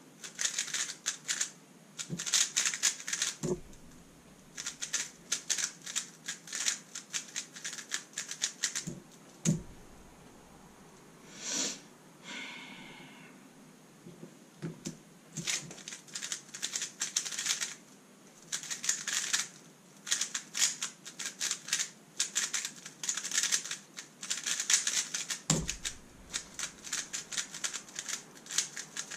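Rapid clicking of a Thunderclap v3 M magnetic 3x3 speedcube being turned. The clicks come in fast flurries with short pauses between them, and there are a few low thumps.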